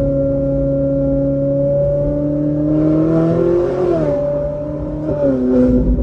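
Ferrari engine running steadily, then revving up about two seconds in and dropping back sharply near the four-second mark, with another dip in pitch a little after five seconds.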